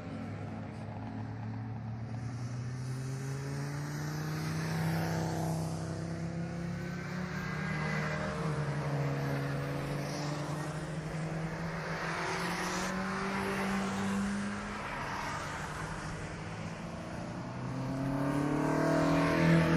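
Alfa Romeo race car engines revving hard, climbing in pitch and dropping back at each gear change. One car draws closer and passes loudly near the end.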